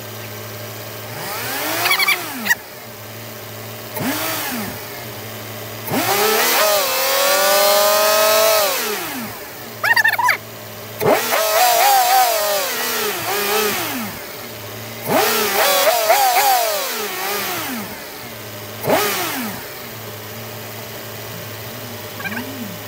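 BMW E36 323i's 2.5-litre straight-six running, its throttle blipped about seven times so the engine note rises and falls, one rev held longer about six seconds in. The revving serves to bleed air from the cooling system after a coolant leak.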